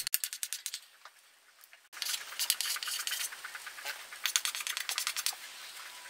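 Chalk writing on a blackboard: quick scratchy strokes in short runs, with a break of about a second near the start.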